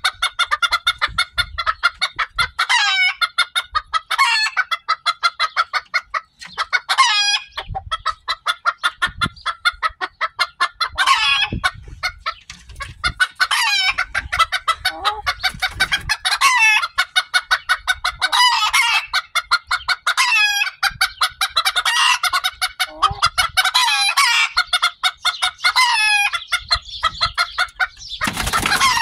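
Chickens clucking and calling continuously in rapid pulses, with repeated short calls and rooster crowing among them; the birds in view are Old English Bantam roosters. A short loud rush of noise comes near the end.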